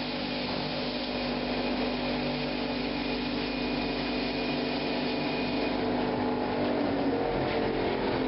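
Henke Hermetik-Silenta turntable concrete-slab press running: a steady mechanical drone with a held hum through it.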